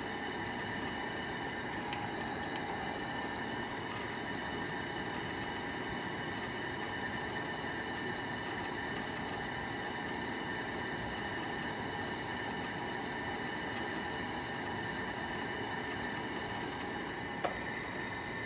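Sharp Comfort Touch window air conditioner running in cool mode: a steady whir of air with a constant high whine over it, and one short click near the end.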